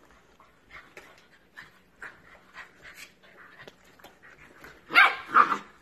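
Two dogs play-wrestling: panting and short soft sounds throughout, then two loud, sharp play cries about five seconds in.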